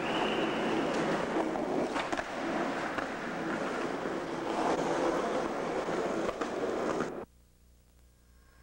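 Skateboard wheels rolling over a concrete floor: a steady rough rumble with a few light clacks. It cuts off abruptly about seven seconds in, leaving only faint hiss.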